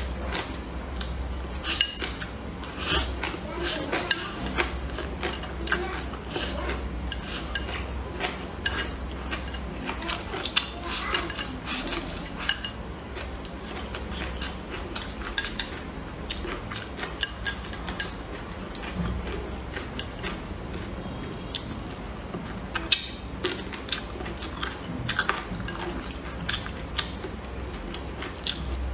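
Close-miked eating: wet chewing and lip smacks on mouthfuls of rice, greens and braised pork, with chopsticks clicking and scraping against a ceramic bowl. The sounds come as many short, irregular clicks and smacks.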